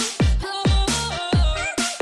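Electronic dance music with a heavy kick drum beating about twice a second under a pitched synth melody.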